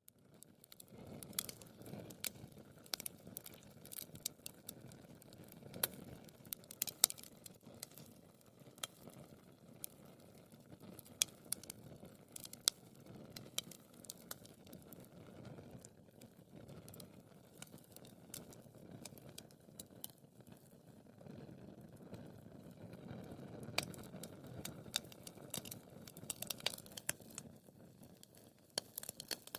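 Wood fire crackling in a fireplace: irregular sharp pops and snaps over a low, steady rush of the flames.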